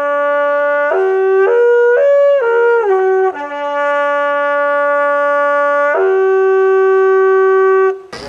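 Midwinter horn (midwinterhoorn), a long wooden horn, blown in long held notes: a low note, a quick run of higher notes about a second in, the long low note again, and a higher note held until it stops near the end.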